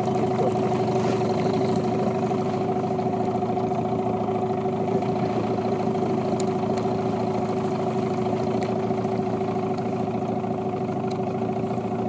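Yamaha 9.9 outboard motor on an inflatable boat running steadily at an even pitch, with a few faint clicks over it.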